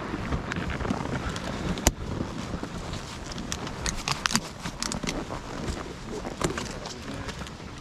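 Crunching of boots in packed snow and scattered clicks and knocks of ski gear, over a low rumble of movement on a helmet-mounted camera. One sharp knock stands out about two seconds in.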